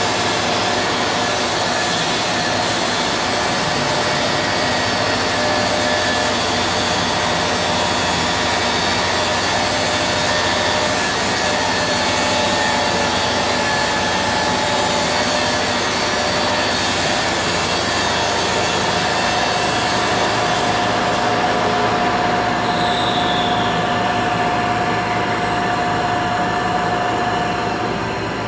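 Deckel Maho CNC machining centre running: a steady mechanical hiss with even humming tones. About three quarters of the way through, the highest part of the hiss cuts off while the rest runs on.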